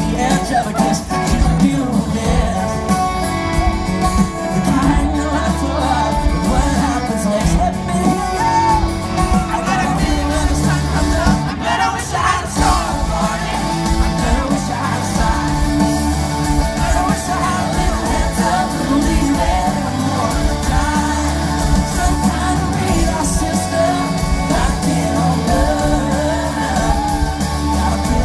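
Live pop-country rock band playing through a concert sound system, with guitar, bass and drums and a voice singing.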